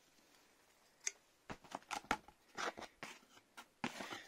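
Corrugated cardboard shipping box and its packing tape being handled open after the tape has been cut: an irregular run of short scrapes and crackles starting about a second in.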